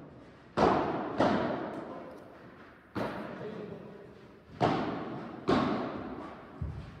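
Padel rally: the ball struck by solid padel rackets and bouncing on the court, six sharp hits at uneven intervals, each echoing through a large hall.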